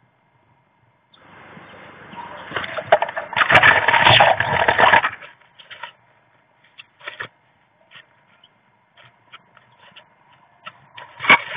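Loud wing flutter and scrabbling inside a wooden nest box for about four seconds as a tit bursts in. It is followed by scattered short scratches and rustles as a great tit moves over its moss-and-hair nest, with a sharp knock near the end.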